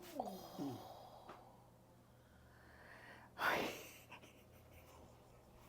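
A woman's brief falling moan, then about three and a half seconds in a single loud, noisy, sharp breath, like a gasp or sniff.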